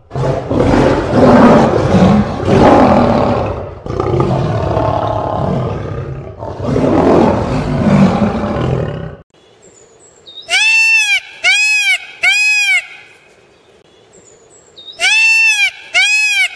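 An animal roaring and growling loudly for about nine seconds. After a short pause come short, clear, high calls that rise and fall in pitch, in two groups of three.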